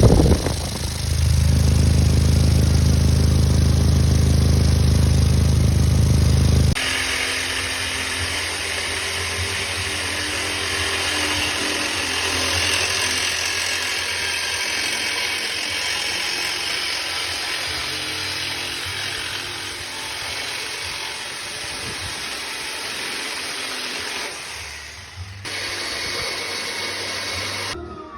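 A car engine idles with an exhaust leak. After a sudden cut about seven seconds in, a steady, harsh power-tool noise runs for most of the rest, changing at further cuts near the end.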